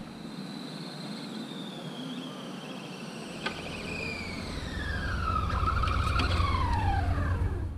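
Electric RC drag car's brushless motor and gear whine, falling steadily in pitch as the car slows on its way back in. A low rumble grows louder from about halfway and there is a single click about three and a half seconds in.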